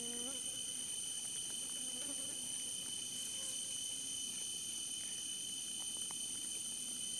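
Insects trilling steadily in several high, even tones, with a lower buzz near the start that fades within the first second.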